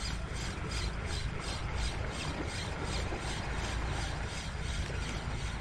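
Spinning reel being cranked to retrieve a lure: a rhythmic whirring rasp that pulses about three times a second.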